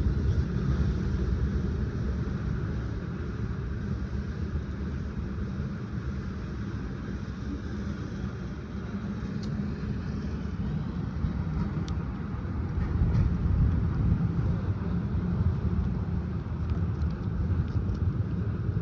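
Steady low rumble of city street traffic, swelling a little partway through, with a few faint clicks.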